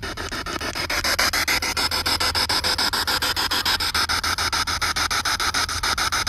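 Spirit box (ghost box) radio sweeping through stations: hissing static chopped into rapid, even pulses several times a second, with brief snatches of shifting tone.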